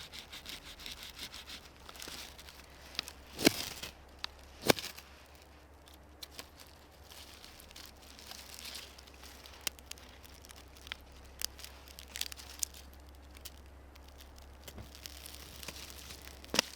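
Irregular rustling and crinkling, as of fabric or plastic gear being handled, broken by a few sharp clicks, the loudest two about three and a half and four and a half seconds in.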